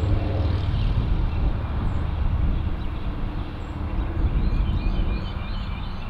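Small single-engine airplane flying overhead, a steady low rumble that swells and fades slightly. Birds start chirping again near the end.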